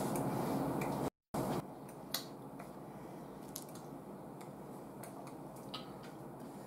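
Quiet eating and tableware sounds: a few sharp soft clicks of a metal spoon against a lacquered bowl, with mouth noises. About a second in, the sound drops out briefly to dead silence at an edit cut.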